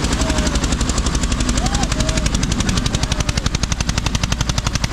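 Diesel tractor engine running hard under tug-of-war load, its exhaust beating in a rapid, even rhythm that grows more pronounced toward the end. Faint shouts sound over it.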